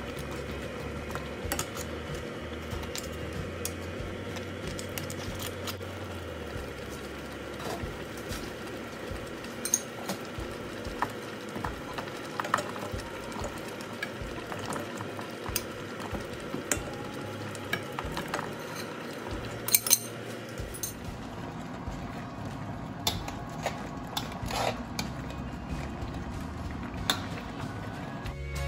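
Crabs simmering and bubbling in coconut milk in a stainless steel pan, with a metal spoon clinking and scraping against the pan as the crabs are turned and squash and green beans are added and stirred in. The clinks come irregularly, the sharpest about twenty seconds in.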